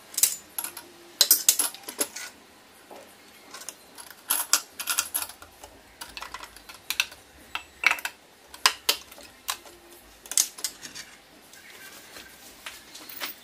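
Hookah parts being handled and set in place: an irregular string of sharp clicks and clinks of metal and hard plastic parts knocking against each other and the acrylic base.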